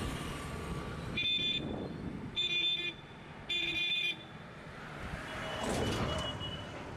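A vehicle horn sounding three short beeps, each about half a second long and a second or so apart, over steady background noise from outside.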